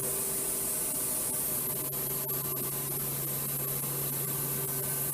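Spindle of an Okuma Cadet Mate vertical machining center running steadily at 2500 RPM, a steady hum under an even hiss.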